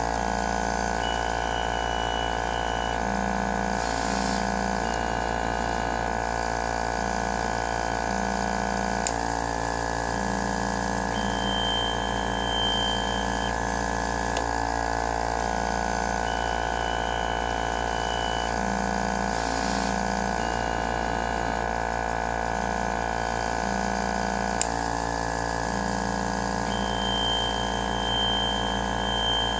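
Home-built pick-and-place machine running a production cycle: a steady machine hum under short, repeated whining tones from its motors as the placement head moves, in a pattern that repeats about every fifteen seconds. Two sharp clicks, about nine and twenty-five seconds in.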